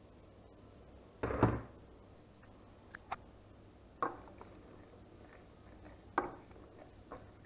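Wooden spoon stirring chopped vegetables in a stainless steel stew pot, with a louder clunk about a second in and then several short knocks of the spoon against the pot.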